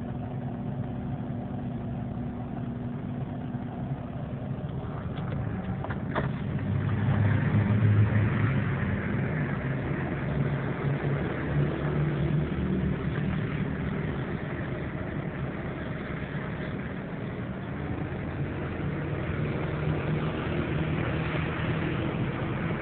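Car engine running, heard from inside the cabin: a steady low hum that swells louder about seven to nine seconds in, then settles back.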